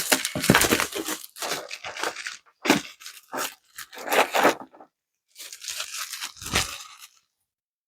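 Packaging of a keycap set box being torn open and crinkled, in irregular rustling bursts that stop about a second before the end.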